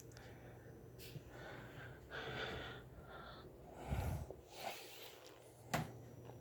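Quiet room tone with a steady low hum, broken by a few short breaths or sniffs close to the microphone. A dull bump comes about four seconds in, and a sharp click near the end.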